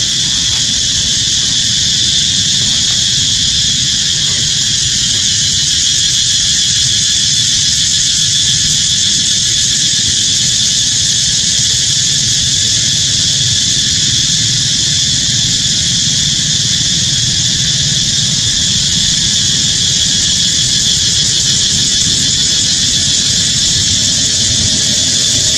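Steady, loud, high-pitched drone of a forest insect chorus, unbroken throughout, over a low rumble.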